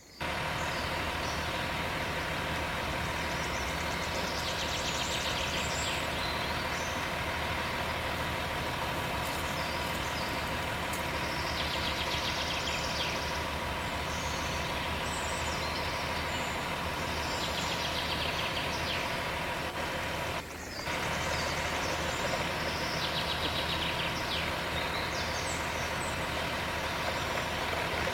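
Steady truck engine noise that runs on without change and breaks off briefly about twenty seconds in.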